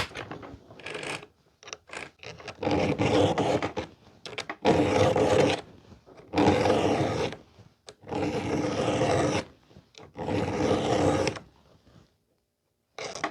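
Chainsaw chain being hand-sharpened with a file: five long rasping strokes across a cutter tooth, about one every two seconds, with another starting near the end and a few light clicks in the first two seconds.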